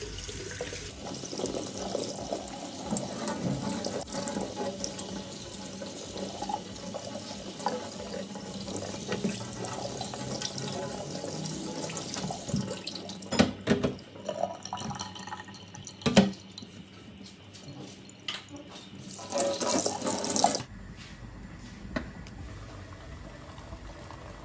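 Kitchen tap running into a stainless steel sink while rice is washed by hand in a plastic colander, with a few sharp knocks in the middle. The water cuts off suddenly about twenty seconds in, leaving a quieter steady background.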